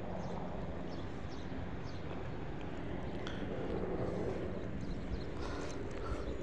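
Steady outdoor harbour background hum with a low steady drone, and a few faint ticks and light knocks scattered through it.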